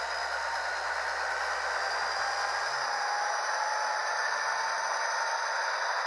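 Sound from the Tsunami sound decoder in an HO-scale model rotary snowplow, played through the model's small speaker: a steady, even hiss with faint tones running through it as the model moves slowly along the track.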